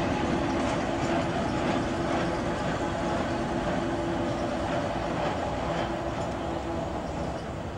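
Vintage electric tram running past on street track, a steady rumble of wheels and motor that slowly fades as it moves away.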